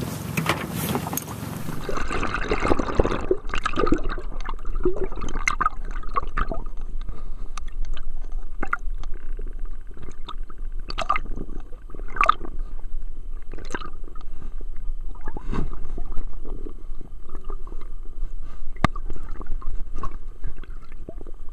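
Water splashing and wind at the surface beside the boat for about two seconds, then a sudden change to muffled underwater sound: gurgling water with many scattered sharp clicks and crackles and a faint steady tone.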